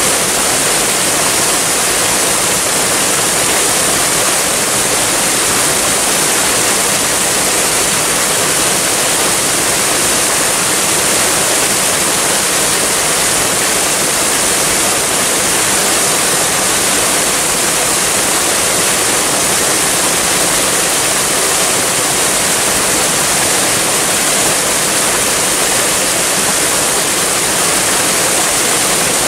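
Waterfall: a steady, unbroken rush of falling water with a bright hiss.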